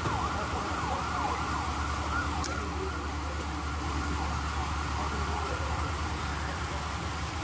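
A siren-like high tone wavering quickly up and down, over a steady low hum; the wavering fades after about two and a half seconds.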